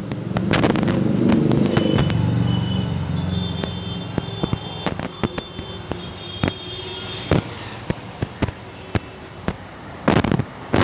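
Repeated sharp bangs and pops at irregular intervals, with a low rumble over the first two or three seconds and a quick cluster of bangs near the end.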